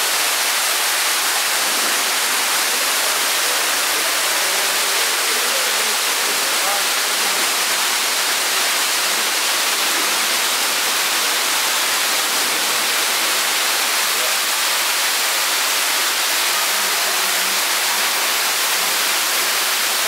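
Madakaripura waterfall: water falling from high cliffs makes a steady, even rush that does not change in level.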